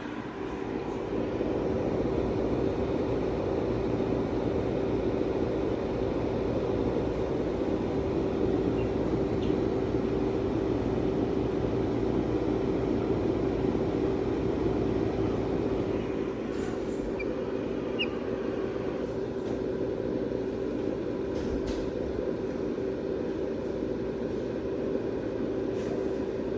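A steady mechanical hum with a constant low tone.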